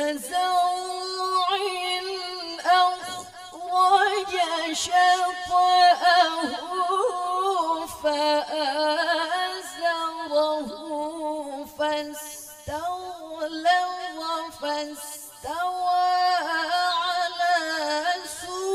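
A woman reciting the Qur'an in melodic tilawah style into a microphone, holding long ornamented notes that waver in pitch, with several short breaks for breath.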